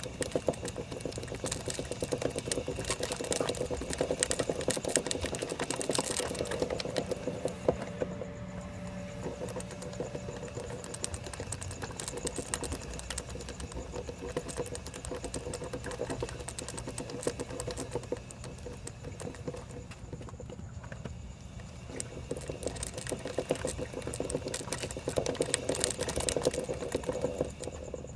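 Rapid, continuous clicking from the front sprocket area of a 2007 Suzuki GSX-R1000 (K7), over a low steady hum; the clicking is heavier in the first several seconds and again near the end. It is the front-sprocket clicking fault the bike is being checked for.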